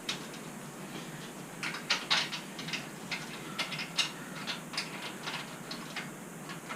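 Irregular sharp metal clicks and clinks, some in quick little clusters, from metal parts being handled and fitted together.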